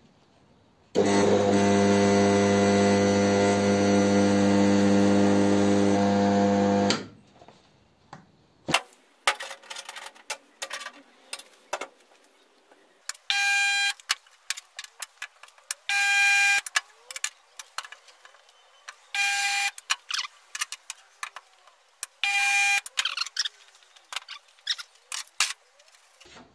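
Resistance spot welder buzzing with mains hum as it welds sheet steel. One long buzz of about six seconds comes first, then four short buzzes about three seconds apart, one for each spot weld. Sharp clicks and clanks of the welder being moved and clamped fall between them.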